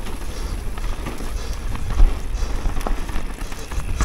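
Downhill mountain bike riding over a dirt trail: wind rumbling on the camera's microphone, tyres crackling over dirt and dry leaves, and rattling knocks from the bike over bumps, the sharpest about two seconds in.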